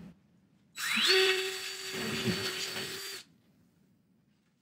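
Cordless drill spinning up with a quickly rising whine about a second in, then running steadily for about two seconds as it bores a pilot hole through the wall, and stopping abruptly.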